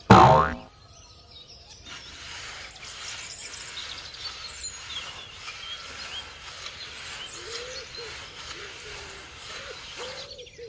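A short, loud tone sliding down in pitch right at the start, then a steady outdoor hiss with small birds chirping from about two seconds in, which stops abruptly near the end.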